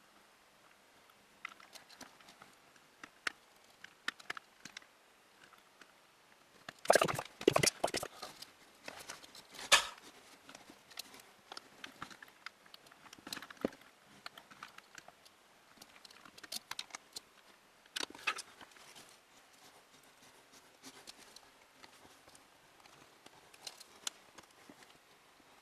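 Scattered clicks and knocks of computer hardware being handled, such as fans, screws and case parts during a PC fan installation, with a loud cluster of knocks about seven seconds in and another sharp knock near ten seconds.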